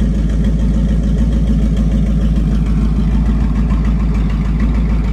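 1970s Ford F-series pickup's engine idling steadily on a freshly fitted carburetor, which the owner says cured its high idle.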